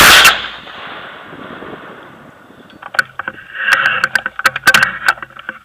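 A single AR-15 rifle shot in 5.56/.223, very loud right at the start and dying away over about half a second. From about three seconds in come a run of sharp clicks and crackling rustle.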